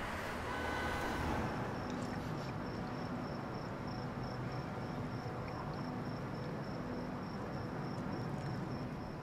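Crickets chirping steadily in night-time ambience, a high, rapidly pulsing trill that sets in about two seconds in, over a low steady background noise.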